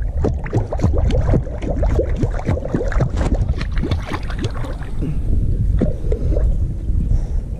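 Water splashing and gurgling as a small dog paddles in a plastic kiddie pool, heard close up at the water's surface: a dense, continuous run of splashes that thins briefly a little past halfway.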